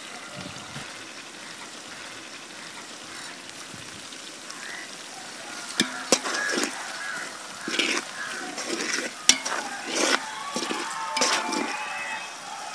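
Chopped spring onions, onions and green chillies sizzling steadily in hot oil in a metal pot. From about six seconds in, a metal spatula scrapes and clicks against the pot as the mix is stirred.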